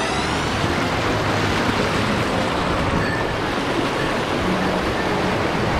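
Mountain headwater stream rushing, a steady, even noise of flowing water.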